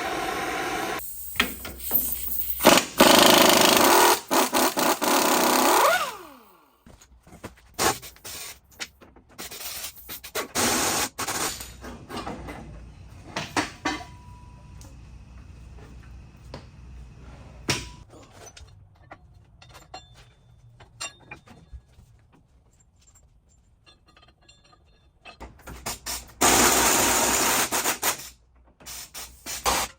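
A power tool running in two loud bursts, the first winding down with a falling pitch. Between them come scattered metallic clicks and knocks of hand tools and parts as the rear suspension is worked on.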